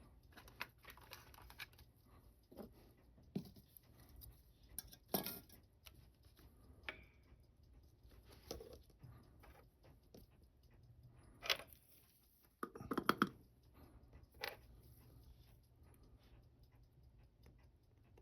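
Faint, irregular small clicks and taps of watchmaker's tools against the parts of a vintage watch being taken apart on a bench, with a louder cluster of knocks about thirteen seconds in.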